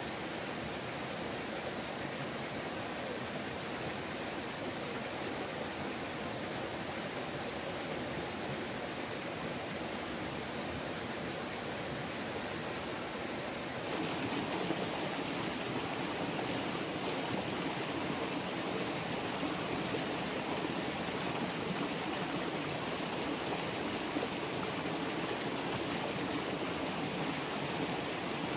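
Running stream water, a steady even rush of flowing water that steps up in loudness about halfway through.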